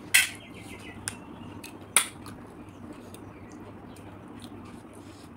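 Sharp clicks of river snail shells being handled and picked at with a small stick: two loud clicks about two seconds apart, with a few faint ticks between, over a steady low hum.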